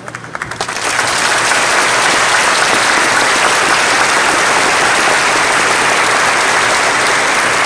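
Audience applauding: a few scattered claps build within about a second into steady, full applause.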